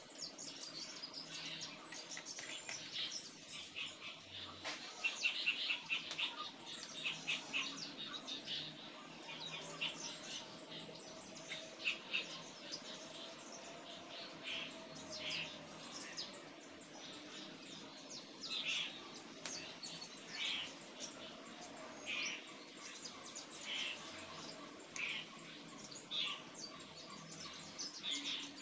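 Small birds chirping in short, repeated chirps throughout, over a faint steady background.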